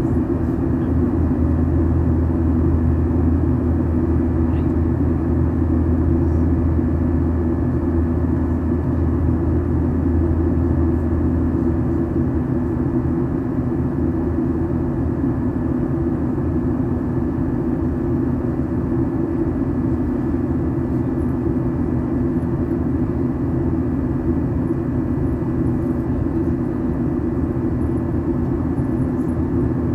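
Steady drone of an airliner's engines and rushing airflow heard inside the passenger cabin during the climb-out after takeoff. The deepest hum eases a little about twelve seconds in.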